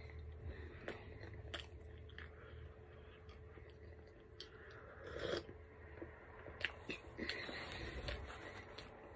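Quiet mouth sounds of a person eating: chewing with small wet clicks, and sips from a cup, with one slightly louder sound about five seconds in.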